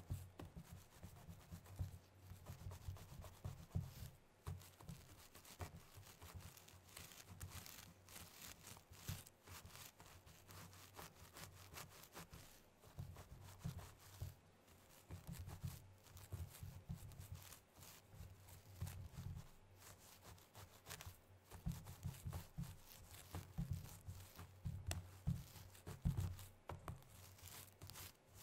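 Very long fingernails scratching and rubbing fast through hair and scalp, a dense, uneven run of short scratchy strokes.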